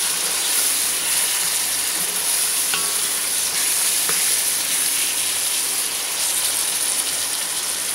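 Chopped tomatoes, onions and spices sizzling in hot oil in a pot as they are stirred with a wooden spatula: a steady frying hiss with a few faint scrapes of the spatula.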